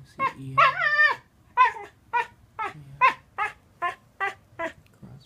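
A cockapoo howling: one long wavering howl about half a second in, then a run of about eight short yelping howls at roughly two a second.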